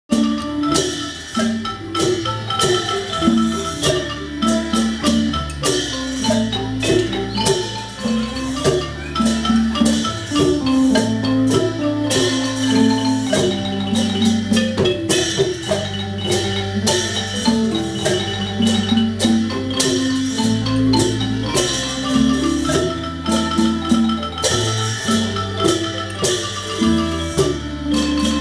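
Thai ensemble music led by a ranat ek, the boat-shaped Thai xylophone, playing quick runs of struck notes over drums and a steady electric bass line.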